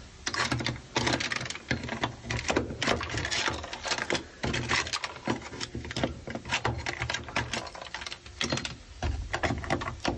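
A hand scraper chipping and prying dry-ice-frozen sound-deadening mat off a car's sheet-metal floor pan: rapid, irregular cracking and scraping as the brittle frozen deadening breaks free.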